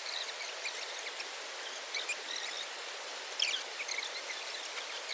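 Steady rush of flowing river water, with short high chirps scattered through it and a brief louder cluster of chirps about three and a half seconds in.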